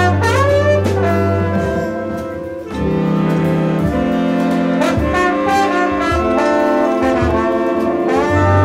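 Large jazz orchestra of brass and reed instruments playing held chords, with some notes bending in pitch over them. The sound dips briefly about two and a half seconds in, then a new chord comes in.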